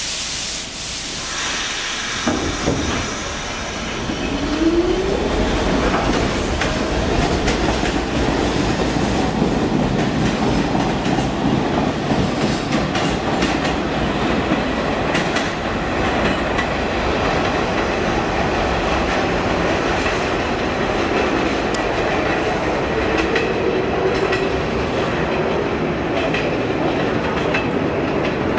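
Pullman Standard R46 subway train pulling out of the station and running away along the track, wheels clattering over the rail joints. It opens with a sudden burst of hiss that fades within a couple of seconds, and a short rising motor whine follows a few seconds in. After that comes a steady rumble with many small clicks.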